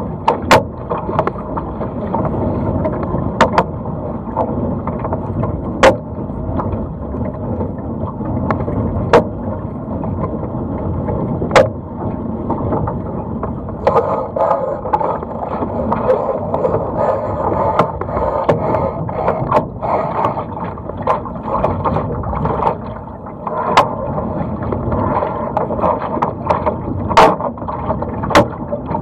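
Water rushing and splashing along a sailing dinghy's hull as it sails through chop, with sharp knocks every few seconds as the hull slaps into waves or spray hits the deck.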